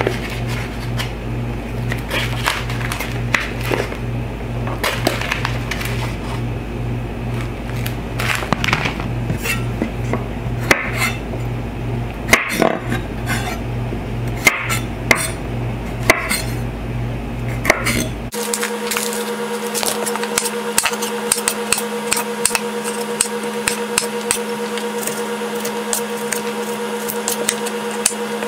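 Chef's knife knocking on a bamboo cutting board as garlic cloves are crushed and chopped. The knocks come irregularly at first, then turn into quicker, more even chopping about two-thirds of the way through. A steady background drone underneath changes abruptly at the same point.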